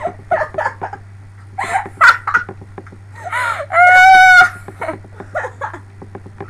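Girls laughing in short bursts, then about four seconds in a loud, shrill, steady squeal held for about half a second.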